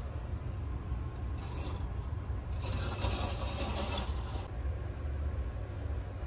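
A fabric curtain being drawn across a sleeper train's compartment window, its cloth and runners swishing and scraping along the rail in two passes, the second longer, over the low steady hum of the train.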